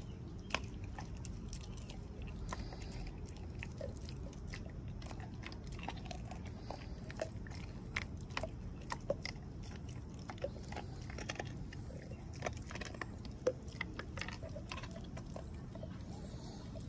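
Dog chewing and gnawing a piece of raw meat, with irregular wet clicks and smacks of its teeth and jaws.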